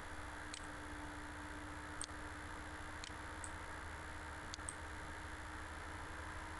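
Computer mouse clicking, about six short sparse clicks, over a steady low hum and hiss from the recording.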